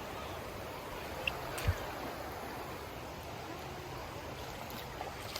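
Steady rush of flowing creek water, with a short low thump a little under two seconds in.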